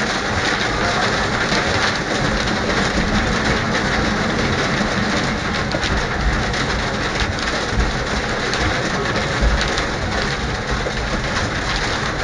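Heavy rain pelting the windscreen and roof of a tram driver's cab, heard from inside the cab as a loud, dense, steady hiss.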